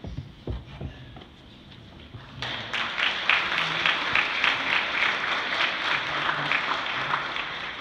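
A congregation applauding. The clapping starts about two and a half seconds in and eases off near the end, after a few soft knocks in the first second.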